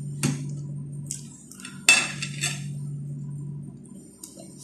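A spoon and ceramic plates clinking a few times on a table, the sharpest knock about two seconds in, over a steady low hum.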